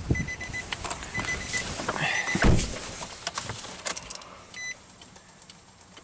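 A car's warning chime beeps twice as someone gets into the driver's seat of a Nissan Sentra, and the door shuts with a heavy thump about halfway through. A few clicks of the key and controls follow, then a short electronic beep, and the engine does not crank or start.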